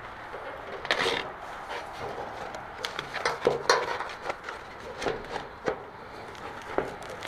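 Ribbed rubber mat being laid and pressed by hand into a steel cart tray coated with tacky spray adhesive: irregular rubbing and scuffing of rubber on sheet metal, with a few sharper knocks about a second in and again around three to four seconds in.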